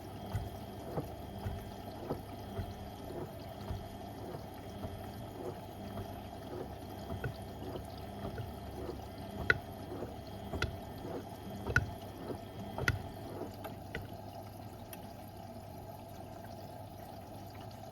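Beko WM74135 washing machine running with water pouring and sloshing in the drum. Light clicks run throughout, and in the middle come several sharper knocks about once a second.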